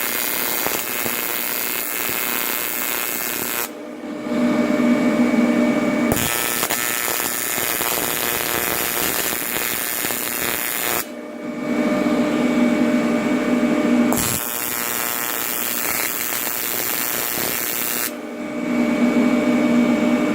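AC TIG welding arc buzzing steadily on aluminium. Every few seconds the sound switches between a hissing buzz and a heavier, lower buzz.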